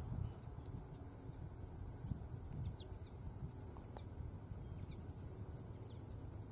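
Insects chirping in the surrounding fields: one steady high-pitched trill and a second, lower chirp pulsing at an even rhythm, over a low gusty rumble.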